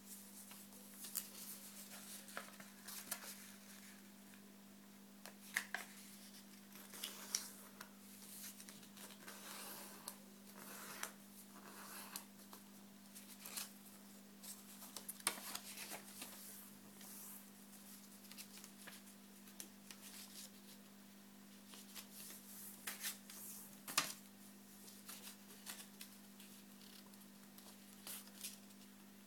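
Origami paper being folded and creased by hand: faint, irregular rustles and crinkles, with one sharper click near the end. A steady low hum runs underneath.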